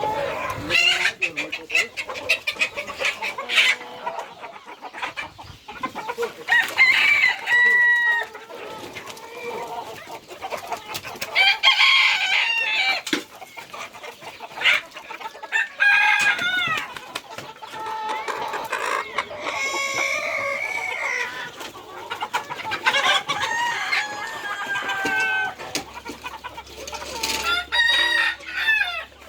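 Chickens in a poultry yard clucking, with roosters crowing several times, one call overlapping another.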